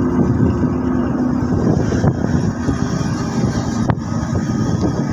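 Motorcycle engine running on the move, with wind buffeting the microphone; a brief click about four seconds in.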